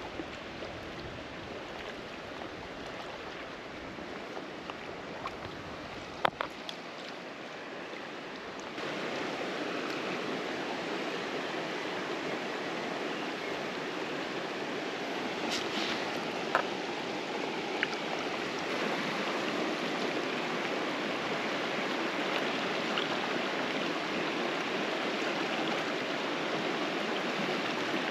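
River water rushing over stones in a steady wash, which gets louder about nine seconds in. A couple of sharp clicks come about six seconds in.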